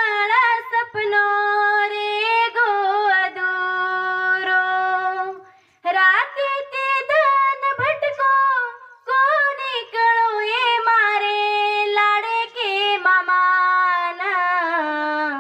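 A young woman singing a Banjara folk song solo into a microphone, unaccompanied. She draws out long, wavering held notes and breaks briefly about five and a half seconds in.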